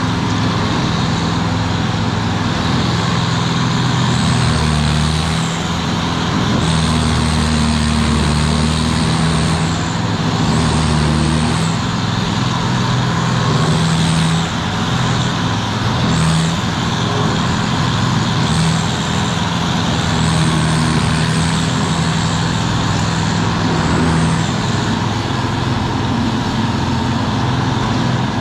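Carlton SP8018 TRX stump grinder running hard, its cutter wheel grinding into an oak stump. The engine note shifts and swells several times as the wheel bites and sweeps through the wood, over a steady loud grinding noise.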